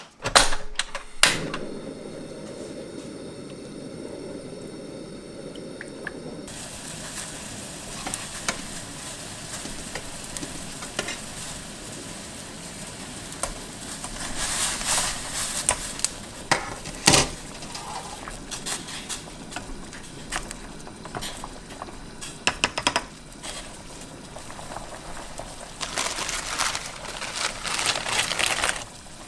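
Broth in a stainless steel pot heating and bubbling steadily as it comes to a boil. A few sharp clicks come near the start, and scattered clinks and knocks follow as meatballs are slid off a wire rack into the pot, the loudest about halfway through.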